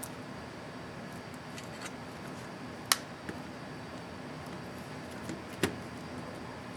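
Sharp little plastic clicks from a laptop keycap on the ASUS ZenBook UX31E keyboard being snapped onto its scissor mechanism or pressed: a loud click about three seconds in with a faint one just after, and another about two and a half seconds later, over a steady background hiss.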